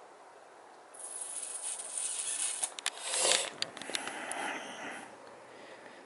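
A gust of wind hissing, swelling about a second in and dying away near the end, with a few light clicks in the middle.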